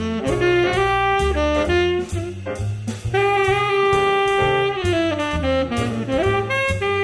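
Background music: an upbeat jazz tune with a saxophone-like lead melody whose notes bend and slide, over walking bass notes and a regular drum beat.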